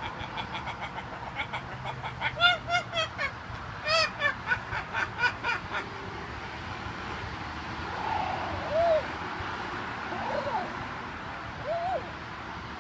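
Green-winged macaw calling: a quick run of short, clipped notes, about five a second, over the first half, then a few separate short calls that rise and fall in pitch, a second or two apart.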